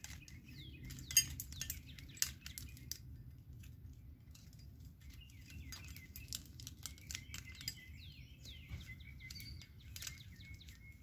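Scattered light clicks and taps of plastic pole ends and a rubber band being worked loose by hand, with short bird chirps in the background.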